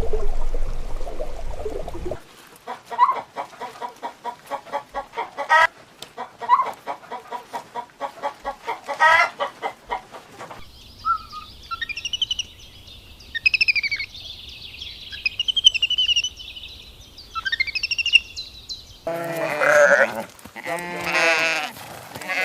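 A run of farm-animal sounds: after a low rushing noise for the first two seconds, a chicken clucks in rapid pulses for about eight seconds, then high thin chirps and peeps follow, and near the end an animal bleats.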